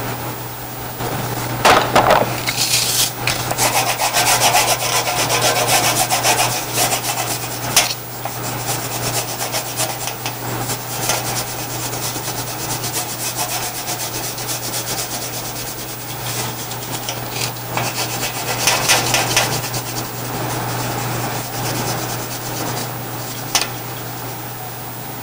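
Wax crayon scribbling back and forth on paper: a continuous scratchy rubbing made of rapid short strokes, heaviest in the first several seconds, over a steady low hum.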